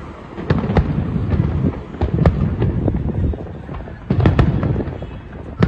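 Aerial fireworks display: shells bursting in quick volleys of sharp bangs, three bunches about two seconds apart, with a low rumble between them.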